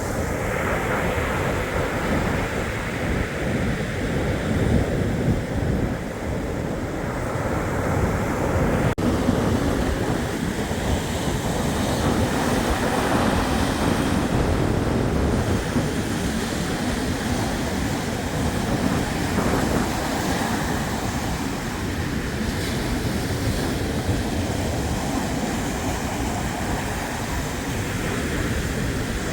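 Black Sea surf: waves washing steadily onto the shore, with a low rumble of wind on the microphone.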